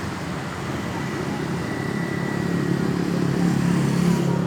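A motor vehicle's engine passing in road traffic, its hum growing louder about three seconds in and peaking near the end.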